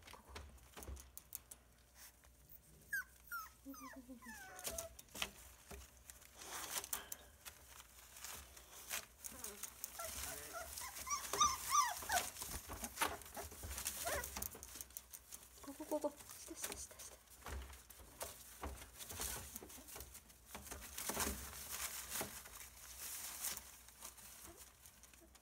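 Boxer puppies whimpering, short high whines that slide down in pitch, a few times over scattered rustles and clicks in the crate.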